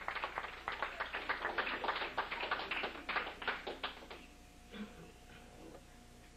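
Congregation clapping, which dies away about four seconds in.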